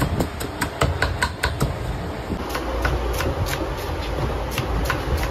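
A knife chopping cabbage and celery on a wooden chopping block: a quick run of sharp knocks, about four a second, growing sparser after about two seconds, over a steady low rumble.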